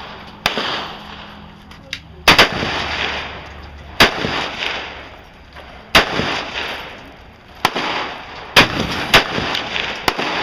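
Gunshots at a shooting range: about eight sharp shots at uneven intervals, including a quick pair a little after two seconds in, each with a ringing echo tail.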